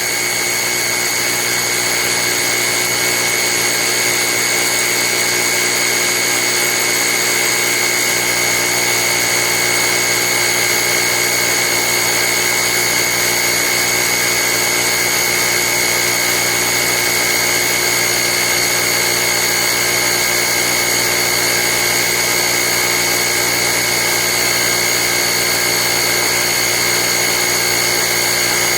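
Small electric air compressor built into a portable jump starter, running steadily under load as it inflates a partly deflated car tyre.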